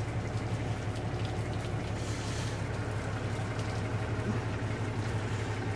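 Steady low engine hum that holds at an even level throughout.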